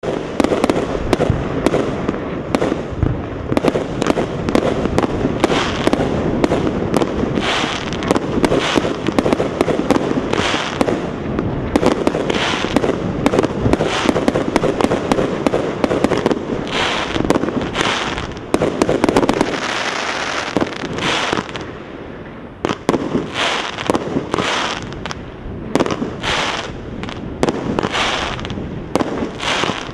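A 25-shot consumer fireworks cake firing in quick succession: a dense, continuous run of sharp bangs, thumps and crackling pops from the shots launching and bursting, several a second.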